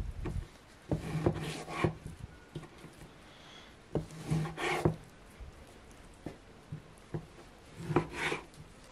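Large kitchen knife slicing through raw meat and knocking on a thick round wooden cutting board, in three bursts of sawing strokes about four seconds apart.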